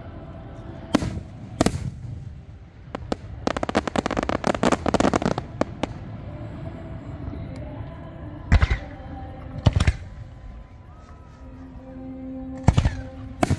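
Aerial fireworks shells bursting: two sharp booms about a second in, then a dense run of rapid crackling around the middle, then several more single booms spread through the rest.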